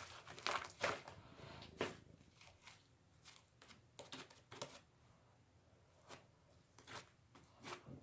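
Faint handling sounds of slime and its plastic container: a few light clicks and rustles, denser in the first two seconds, then sparse.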